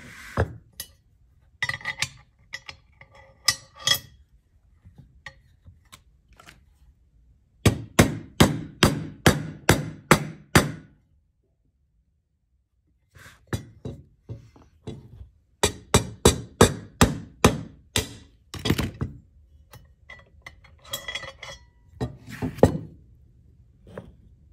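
Metal clinks of a Galil rifle bolt being fitted into its receiver, then two runs of eight or so quick taps from a wooden mallet, about three a second, driving the bolt into lockup so its lugs mark their contact against the trunnion during force matching. More clinks of handling the bolt near the end.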